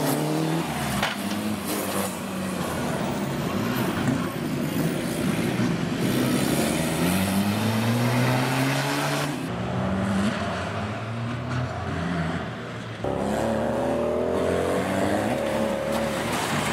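Off-road race car engines revving hard and climbing in pitch again and again as the cars accelerate, over loud noise of tyres on loose dirt. The sound switches abruptly from one car to another a few times.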